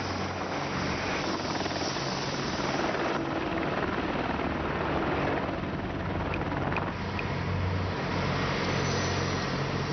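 AH-64 Apache attack helicopter in flight: a steady rotor and engine noise.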